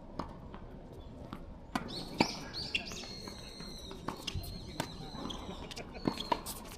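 Athletic shoes squeaking on an indoor court floor, a few high squeals about two seconds in and again near the end, among scattered sharp taps and knocks.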